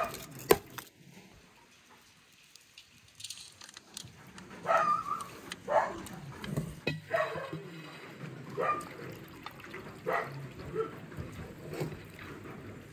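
Aluminium foil crackling as it is peeled off a cooking bucket, then a run of short animal calls about a second apart, with liquid sloshing as broth and cooked chicken are tipped out of the bucket near the end.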